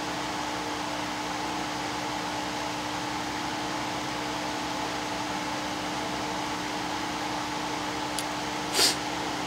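Steady whirring fan noise with a low electrical hum. A short, sharp tap sounds once about a second before the end.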